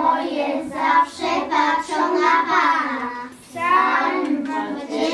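A group of children singing a song together, in phrases with a short breath about three and a half seconds in.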